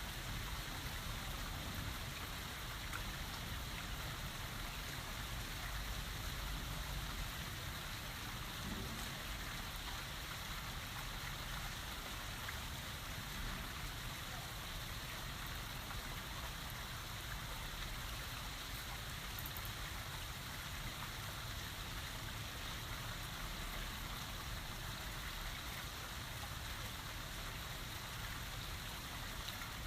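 Steady rain falling, an even hiss of drops with a low, steady rumble underneath and no thunderclaps.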